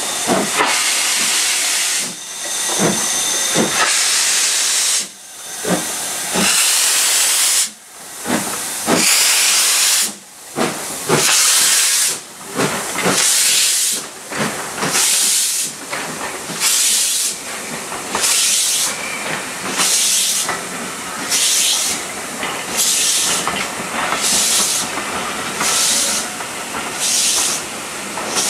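Steam locomotive pulling away with a passenger train, its exhaust chuffing over a steady hiss of steam. The chuffs come slowly at first and quicken to about one a second as the train gathers speed.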